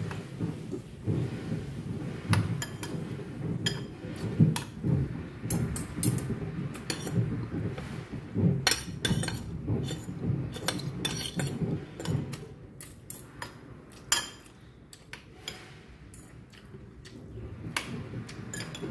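Metal spoon and fork clinking and scraping against a ceramic rice bowl and plate while eating, many short sharp clinks at an uneven pace, thinning out for a few seconds after the middle.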